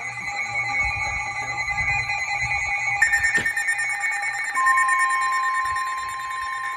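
Weather alert radio sounding its alarm as an emergency alert comes in: several steady electronic tones, changing about three seconds in. A single strong steady tone then starts about two-thirds of the way through, the NOAA weather radio warning alarm tone that comes before a broadcast warning message.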